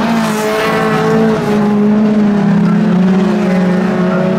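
Several folkrace cars racing on a dirt track: their engines run together at high revs, several engine notes overlapping and held nearly steady.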